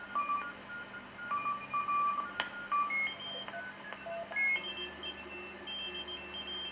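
Shortwave receiver tuned in lower sideband across the 40-metre amateur band, its audio output sounding as a string of beeping whistle tones that jump to new pitches every fraction of a second as the tuning steps over signals. A sharp click comes about two and a half seconds in.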